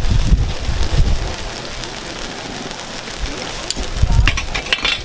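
Batter sizzling on a hot takoyaki griddle, a steady rain-like hiss, with a quick run of sharp clicks near the end.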